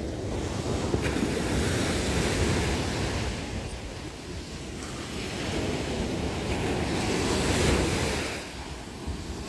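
Sea surf breaking and washing up a sandy beach, swelling twice and easing between, with wind buffeting the microphone.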